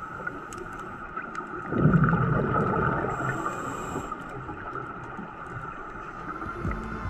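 Underwater sound picked up by a diving camera: a steady hiss, with a louder bubbling swell from about two seconds in, typical of a scuba diver exhaling through a regulator.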